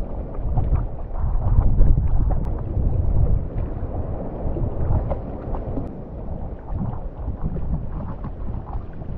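Muffled wind buffeting and shallow seawater lapping around a camera held at the water's surface, with faint light splashes.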